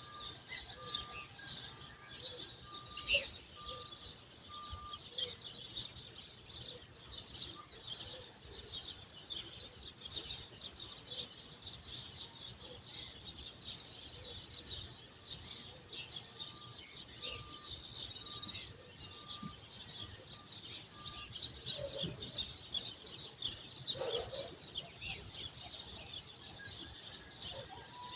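Many small birds chirping together in a dense, continuous morning chorus. Twice, a run of short single-pitched notes repeats about one and a half times a second, first near the start and again about two thirds of the way in.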